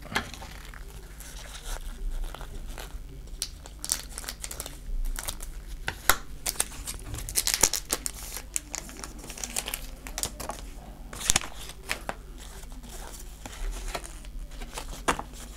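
Foil wrapper of a Pokémon card booster pack crinkling and tearing open by hand, in irregular crackles, with the cards inside being handled.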